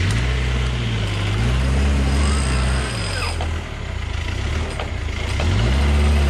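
Off-road 4x4 engine revving up and falling back again and again, as when working through a difficult stretch of terrain.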